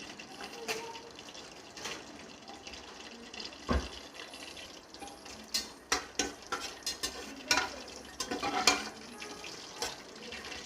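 Whole spices and bay leaves frying in hot oil in a pressure cooker, a low sizzle under the clicks and knocks of a spoon stirring them against the pot, the stirring busiest in the second half.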